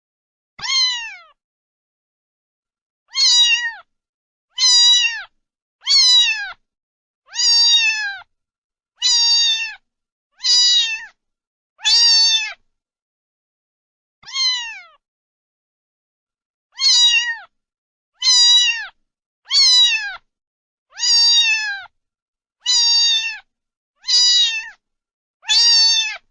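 A domestic cat meowing over and over: about sixteen short, similar meows, each dropping in pitch at the end, with silent gaps between them and a longer pause about midway.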